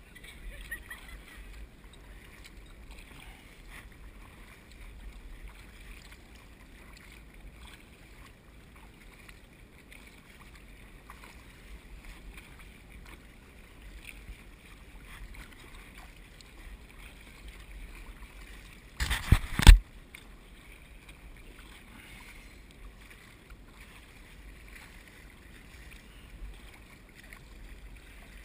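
Kayak paddling: faint paddle strokes and water splashing and lapping at the hull. About two-thirds of the way through there is a brief, loud knocking clatter lasting under a second.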